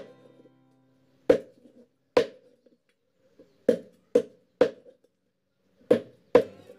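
Knife chopping through raw chicken onto a round wooden chopping board: seven sharp knocks in uneven groups, each with a short ring.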